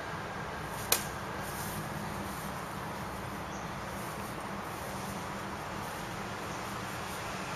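A single sharp clack of sparring swords and shields striking about a second in, over steady background noise.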